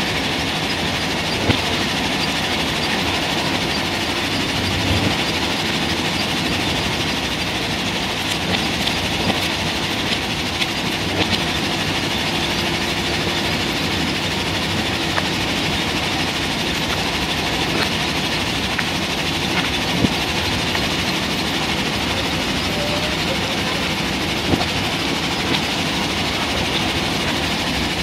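Diesel engine of a JCB 3DX backhoe loader running steadily as its backhoe arm digs sand, a continuous machine rumble with a few sharp clicks and knocks scattered through it.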